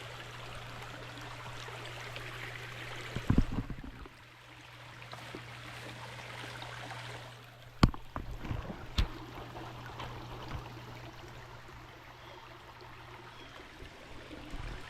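Small creek running steadily, with a few sharp knocks about three, eight and nine seconds in.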